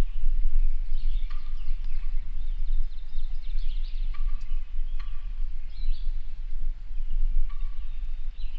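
Birds calling repeatedly over a loud, steady low rumble.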